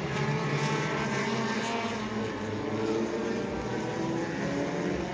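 Several four-cylinder mini stock race car engines running together on the track, their pitch rising and falling as the cars come through the turn.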